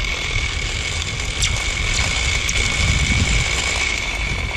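Zipline trolley pulleys running on the steel cable, giving a steady high-pitched whine over a hiss, with a low rumble underneath.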